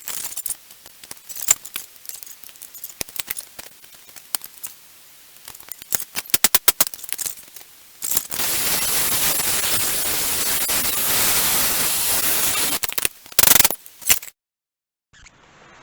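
Scattered metal clicks and knocks from tools working on a hydraulic cylinder clamped in a vise, with a quick run of them about six seconds in. Then a steady loud hiss lasts about five seconds and cuts off, followed by a few more knocks.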